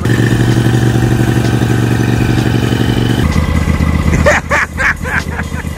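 John Deere X350 lawn tractor's engine running steadily, at a higher pitch at first, then lower and deeper from about three seconds in. A few short, sharp noises come over it near the end.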